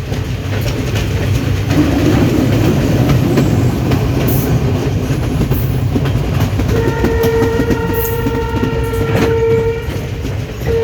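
A moving diesel train rumbles with wheel clatter over the rail joints, and its horn sounds one steady single-note blast of about three seconds, a little past halfway.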